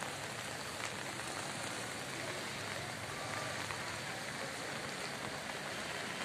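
Steady rain falling on wet streets and rooftops: an even, unbroken hiss.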